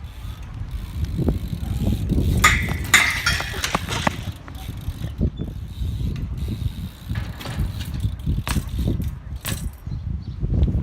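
BMX bike being handled and moved about, its parts rattling and clicking, with a cluster of sharper clicks about two to three seconds in.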